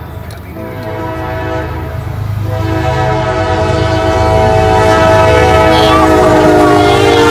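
Freight locomotive air horn sounding one long blast of several notes at once. It grows louder from about two and a half seconds in, over the low rumble of the train.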